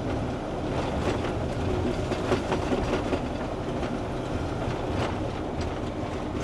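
Cab noise of a 20-foot box truck on the road: a steady engine and road rumble with irregular rattles and clicks.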